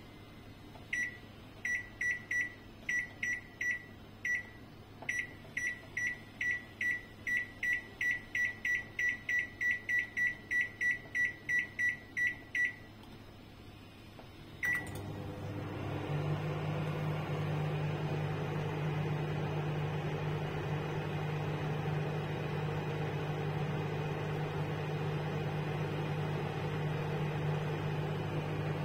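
Samsung microwave oven's keypad beeping: a long run of short, same-pitched beeps in quick succession as the cooking time is keyed in, then a single beep as it is started. The oven then runs with a steady hum.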